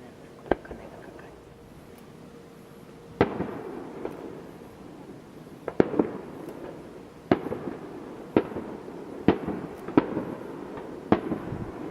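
Aerial firework shells bursting, about ten sharp booms each followed by a rolling echo, coming closer together in the second half.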